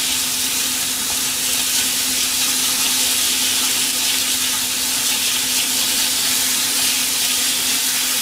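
Pork and vegetables stir-frying in sesame oil in a frying pan over raised heat: a steady, even sizzle while they are turned with chopsticks. A steady low hum runs underneath.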